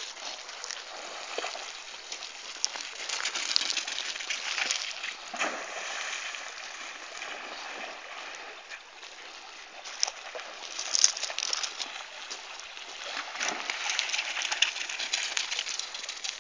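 A dog splashing through a shallow river over the running stream, the splashing coming in irregular surges.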